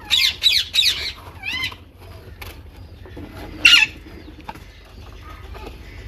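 Green parakeet squawking: a quick run of three or four arched calls at the start, one more about a second and a half in, and a loud one just before four seconds in.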